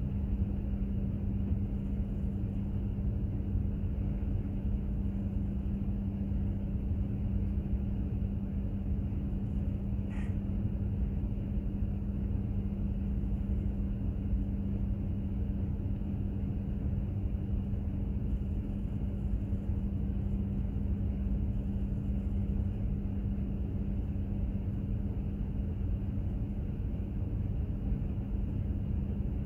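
Container ship under way: a steady low rumble of its engine and hull with a constant hum.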